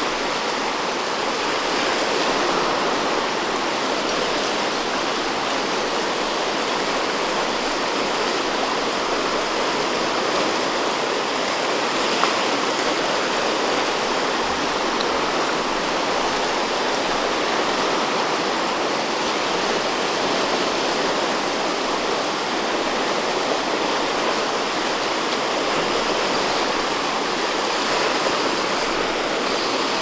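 The Upper Sacramento River rushing steadily through a rocky riffle, running high after rain.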